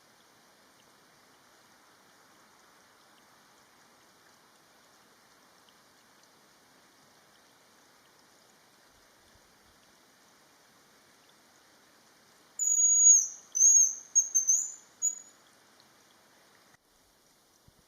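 Hazel grouse song: very high, thin whistles about two-thirds of the way in, two drawn-out notes followed by a quick run of shorter ones, over faint steady background hiss.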